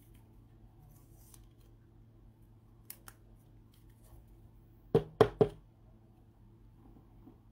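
Trading card being handled in a rigid plastic toploader holder: two faint plastic clicks, then about two seconds later three quick, sharp knocks of the hard plastic holder. A faint steady low hum runs underneath.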